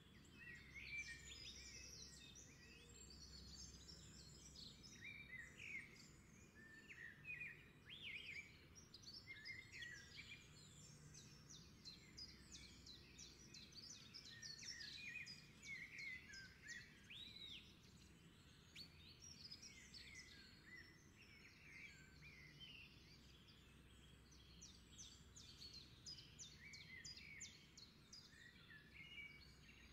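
Faint chorus of many wild birds chirping and calling, short overlapping calls and trills throughout, over a soft steady low rumble.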